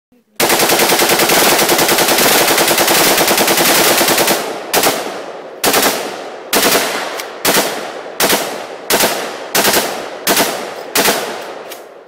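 AK-pattern rifle firing on full auto: one long burst of rapid shots lasting about four seconds, then about ten more shots or short bursts spaced under a second apart, each trailing off.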